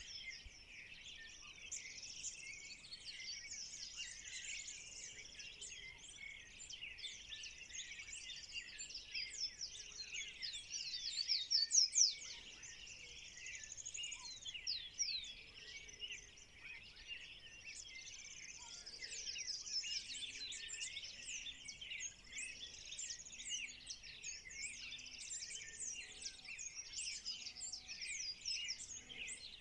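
Dawn chorus of many birds singing and calling together in a dense, overlapping mass of high chirps and trills, swelling loudest about a third of the way in. In the second half a low call repeats at an even pace underneath.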